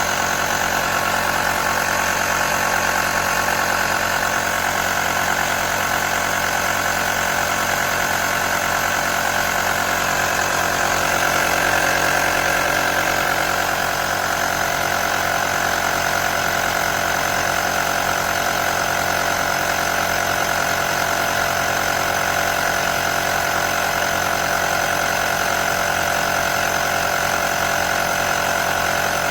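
A motor running steadily, a constant pitched hum that does not change speed.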